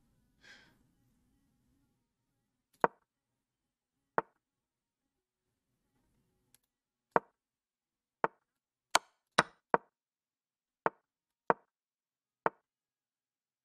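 Chess.com move sound effects: about ten sharp, wooden-sounding clicks of pieces being set down as moves and captures are played, irregularly spaced and coming faster in a run near the middle.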